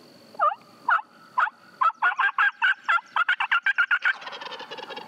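Turkey calling: a run of loud yelps that start about half a second apart and speed up into rapid cutting. A fainter fast rattle follows near the end.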